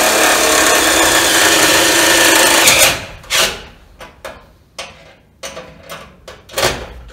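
Cordless drill running steadily against the sheet-metal stove pipe for about three seconds, then stopping suddenly, followed by a string of light clicks and knocks.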